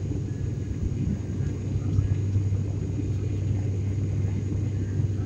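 Steady low drone of an airliner's engines heard inside the cabin during the climb after takeoff, with a constant deep hum.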